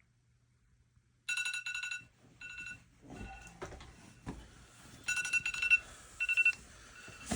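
Electronic alarm clock beeping in short bursts of rapid high beeps, starting about a second in, with rustling and a few knocks underneath from about three seconds in.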